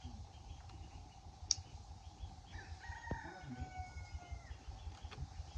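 A rooster crowing once, a long drawn-out call starting about halfway through. A single sharp click comes shortly before it.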